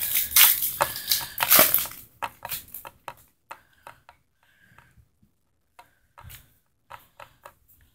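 Foil booster pack wrapper crinkling and tearing open in the hands, followed by scattered light clicks and taps of the trading cards being pulled out and handled.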